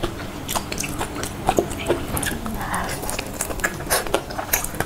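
Mouth sounds of eating ripe durian flesh: irregular smacks and clicks of biting and chewing the soft pulp.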